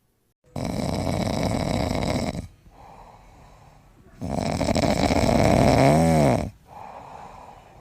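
Dog snoring in its sleep: two long, loud snoring breaths in, with quieter breaths out between them. The second snore ends in a brief wavering whistle.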